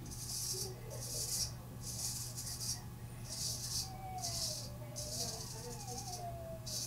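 Straight razor scraping through lathered stubble on the chin in short strokes against the grain, about one stroke a second, each a brief high-pitched scrape.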